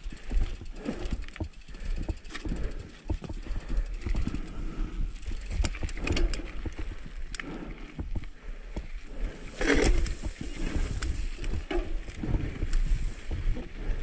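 Mountain bike rolling down a dirt singletrack: tyres crunching over dirt and small rocks, and the bike rattling with many irregular clicks and knocks over a constant low rumble. There is a louder brief burst about ten seconds in.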